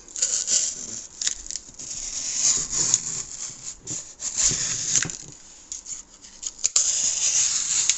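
Browning M1911 pocket knife blade slicing through cardboard: several long scraping, tearing strokes with short pauses between them.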